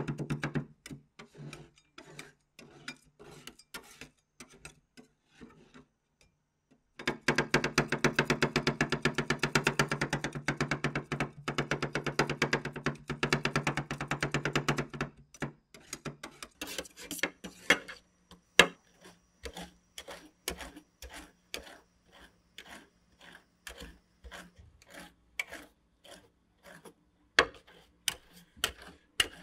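Metal spatulas striking and scraping a stainless steel ice-cream cold plate as green ice cream with cheese snack pieces is chopped and mixed: scattered taps at first, then a fast, dense run of chopping clicks after a short pause, easing to slower single taps and scrapes as the mix is spread flat near the end.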